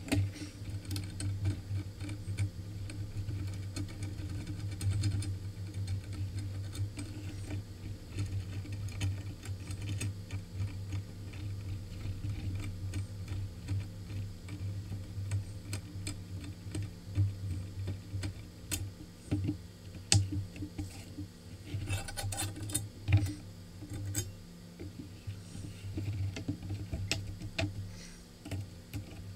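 Irregular small metallic clicks and ticks as a rusty sword's hilt is taken apart by hand: the pommel is turned off the threaded tang and the brass guard is worked loose. A steady low hum runs underneath.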